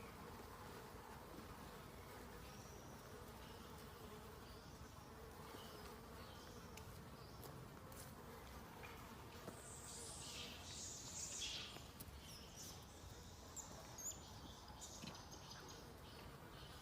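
Faint insect buzzing, with a few brief high-pitched sounds about ten to twelve seconds in.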